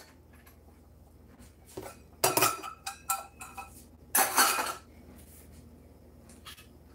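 Kitchenware clattering: dishes and metal utensils knocked together and set down on a counter. The two loudest clatters come about two and four seconds in, with a few lighter clinks around them.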